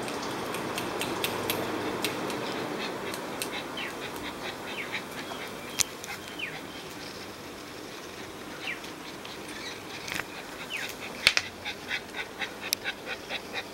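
A German spitz puppy moving about right next to the microphone: scattered light clicks and scuffles, more frequent near the end, with a few faint high chirps and a faint steady high tone.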